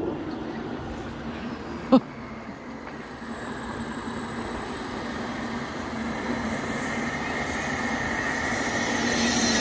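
Homemade jet turbine on an ice sled running, with a thin high whine that falls in pitch over the first few seconds and then holds steady, growing louder toward the end. A single sharp knock about two seconds in.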